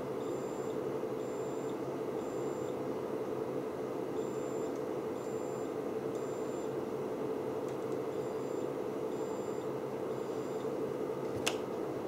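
Triggered smoke detector sounding its alarm: groups of three short, high-pitched beeps with a pause between groups, repeating, faint over a steady hum. A single click near the end.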